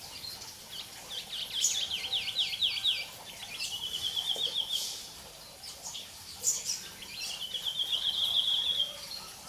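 Songbird singing: a run of quick falling whistled notes about a second in, then two trills of rapid repeated notes, each lasting a second or two, with short sharp high chips scattered between.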